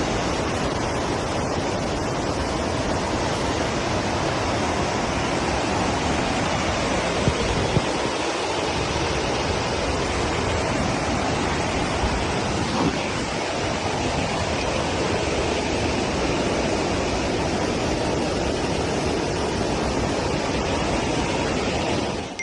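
Steady rushing noise, even and unbroken, with a couple of faint knocks about seven seconds in and again near thirteen seconds.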